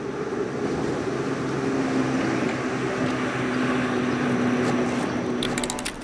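Steady rumble of a passing vehicle outdoors, with a low droning tone held through the middle, and a short rattle of clicks near the end.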